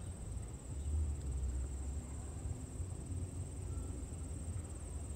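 Insects trilling in one steady high-pitched tone, over a low rumble.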